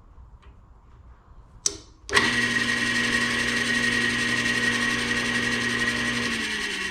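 A sharp snap, then an old band saw's electric motor, fed straight through a stripped wire, starts up and runs with a steady hum and a high whine. Near the end its pitch starts to fall as it begins to spin down. It is running well: the motor works.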